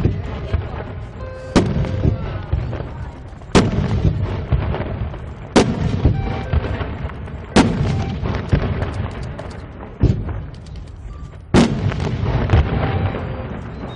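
Firework shots being launched one after another, about six loud bangs roughly two seconds apart, each followed by a rumbling crackle.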